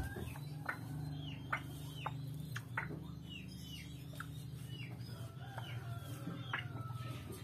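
Fowl calling in a run of short, falling chirps and clucks, about two a second, over a steady low hum.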